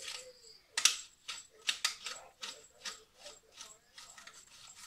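Hand-twisted pepper mill grinding peppercorns: a run of crunching clicks, about two to three a second, as the two halves of the mill are turned back and forth.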